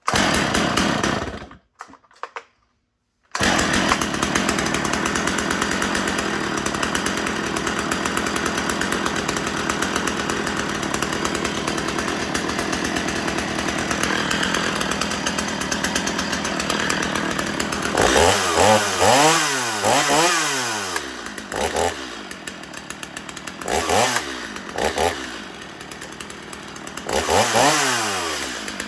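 Stihl MS 250 two-stroke chainsaw running steadily after a short pause, then revved up and back down several times in its last ten seconds.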